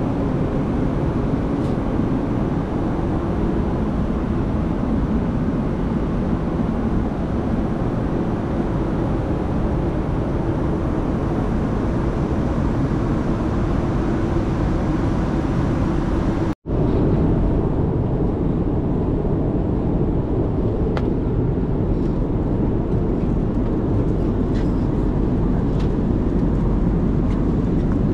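Steady cabin noise of a four-engine Airbus A340-600 in flight: engine and airflow noise heard inside the galley and cabin. The sound cuts out for a split second about two-thirds of the way through, and a few faint clicks come near the end.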